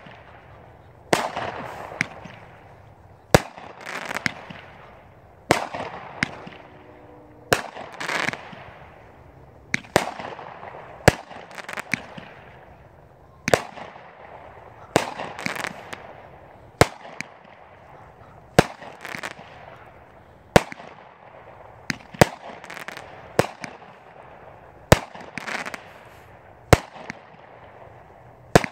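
Red Rhino 'Widow's Kiss' 200-gram 25-shot firework cake firing shot after shot. There is a sharp report about every second, and each one is followed by a second or so of fizzing crackle from its strobe stars.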